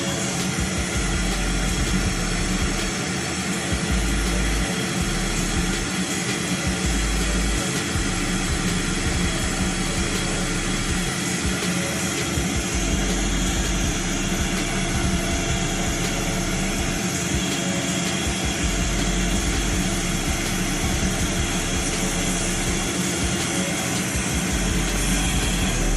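Air duct cleaning machine running steadily: an even rush of air over a constant mechanical hum.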